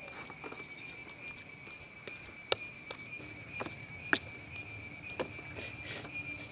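Steel ladle spreading and pressing thick almond burfi mixture in a steel tray: irregular clicks and taps of metal on metal, over a steady high-pitched tone in the background.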